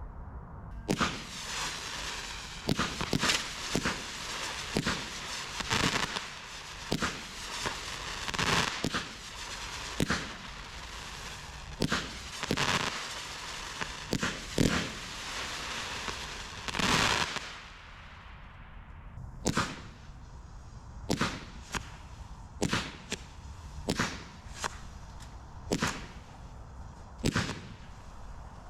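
Low-noise 16-shot firework barrage cakes firing: a rapid run of soft launch pops over a steady hiss and crackle from the effects. After about 18 seconds the hiss falls away and single pops carry on at roughly one or two a second.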